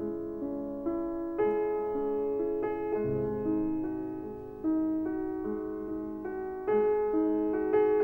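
Slow, gentle solo piano music: notes and chords struck one after another and left to ring and fade.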